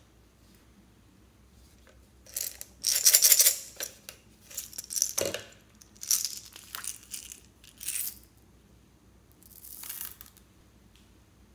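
Small plastic beads poured into a plastic slime bowl, rattling and clattering in several bursts, the loudest about three seconds in.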